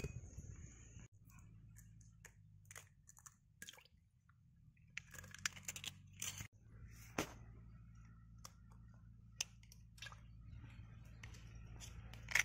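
Eggs being cracked one after another into a stainless steel bowl: faint sharp taps of shell on the rim and soft squishy drops of egg, over a low steady hum.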